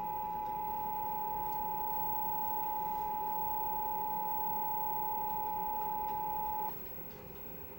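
Emergency Alert System two-tone attention signal: two steady high tones sounding together, the alert that announces an emergency message, here for a Required Monthly Test. It cuts off abruptly near the end, leaving faint broadcast hiss.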